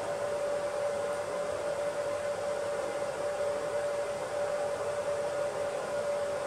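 Alfawise U10 3D printer's cooling fans running, a steady whir with a constant mid-pitched tone over an even hiss.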